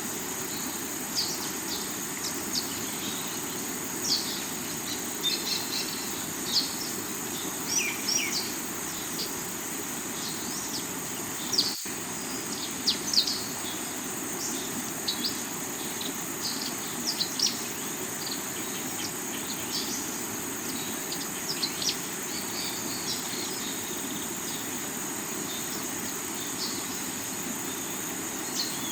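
A river running over rocks, with a steady high insect buzz and many short bird chirps scattered throughout.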